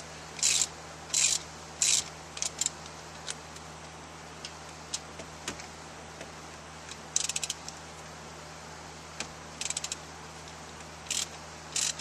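Socket ratchet wrench clicking in short bursts on its back-strokes while turning the 13 mm bolts that hold the stock shifter. A run of strokes comes about a second apart at first, then sparser clicks with a couple of quick flurries.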